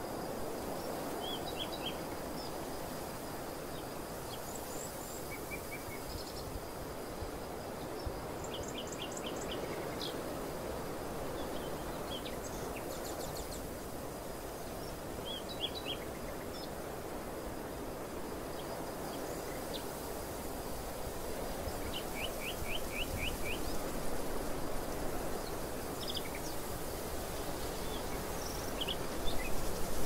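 Steady wind blowing through a green barley field, getting louder and gustier near the end. Small birds call now and then over it in short, quick runs of high chirps.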